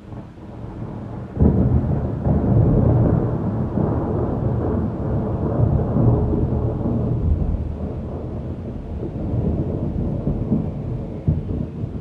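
Thunder: a rumble builds, then a sharp clap about a second and a half in, followed by a long low rumble that slowly fades, with one more brief crack near the end.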